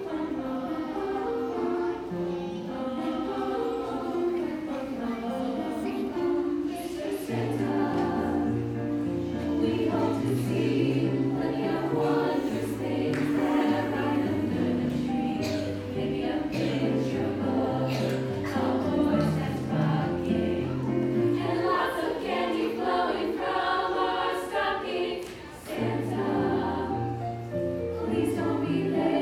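High school choir singing in several-part harmony, with a low part joining about seven seconds in.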